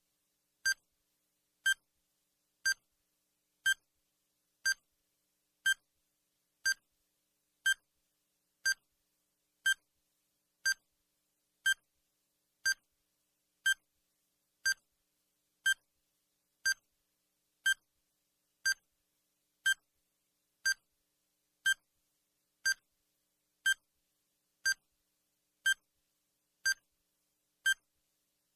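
Countdown timer sound effect: one short, high electronic beep every second, evenly spaced.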